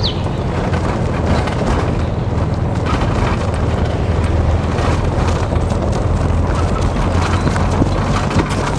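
Vehicle driving on a rough dirt track: a steady low engine drone under road noise, with frequent small rattles and knocks throughout.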